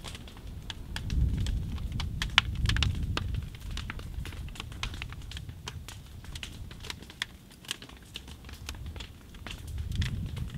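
Burning wooden upright piano crackling and popping: irregular sharp snaps from the fire, one louder pop about two seconds in, over a low rumble that swells and fades.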